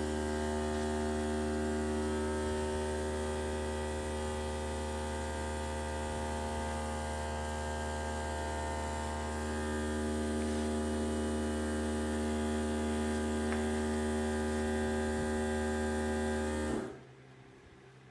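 Steady electric motor hum that cuts off suddenly near the end.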